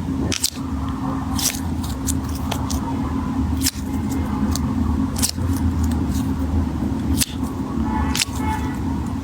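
Sharp crunchy clicks and crackling from squeezing a firm sugar-coated squishy stress ball, a few a second or less, over a steady low hum.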